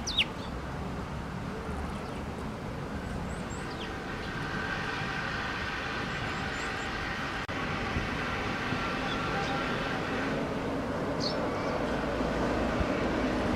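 Steady outdoor background hum, like distant traffic, with a few short high bird chirps.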